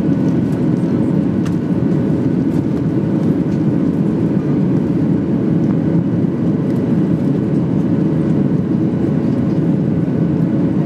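Steady cabin noise of a Boeing 737-800 climbing after takeoff: its CFM56-7B turbofans at climb power and the rush of air past the fuselage, heard from a seat over the wing. A faint steady tone runs through it.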